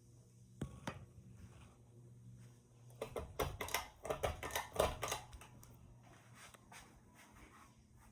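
1980s Aircool ceiling fan running on medium with a faint, steady low motor hum. A click comes just under a second in, and a cluster of clicks and rustles between about three and five seconds in is the loudest part.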